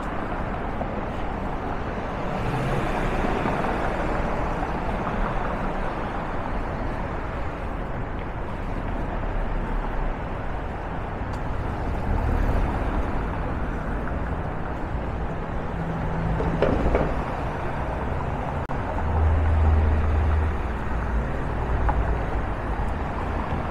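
Downtown street traffic: a steady wash of passing cars and engines, with a deeper engine rumble swelling a few seconds before the end.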